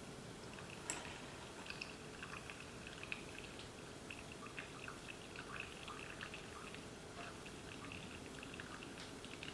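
Coffee maker slowly dripping brewed coffee into a cup of ice: a faint trickle with scattered small ticks and pops, and one sharper click about a second in.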